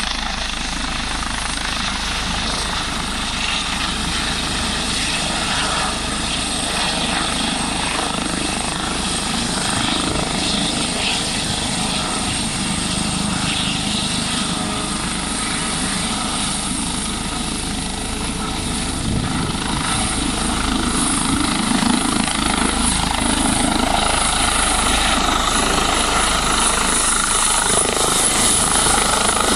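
An Airbus H145 helicopter's main rotor and turbine engines running as it approaches low and comes to a hover to land. The sound is steady and grows louder in the second half as the helicopter draws close.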